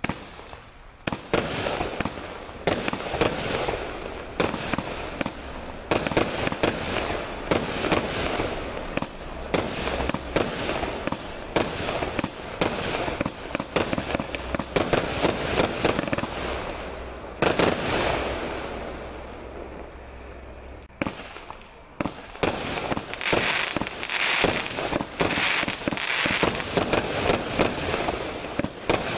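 Lesli Bürgermeister firework battery firing: a rapid run of launch shots and bursting shells with crackle, starting about a second in. It eases off for a few seconds past the middle, then picks up again with dense crackling.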